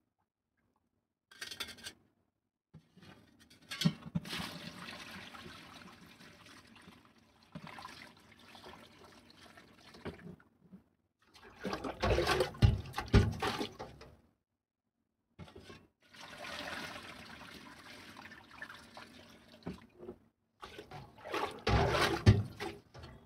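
Water being poured into a plastic mug sitting on the gravel of an aquarium as the tank is filled, splashing and trickling over the gravel. It comes in several pours with short breaks, the heaviest about halfway through and again near the end.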